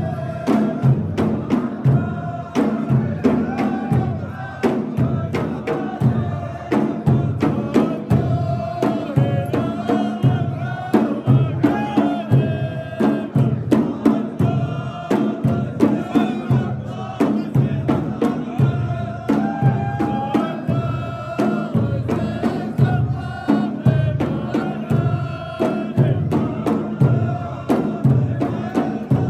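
Chanted Arabic singing over a steady percussion beat, a little over one beat a second.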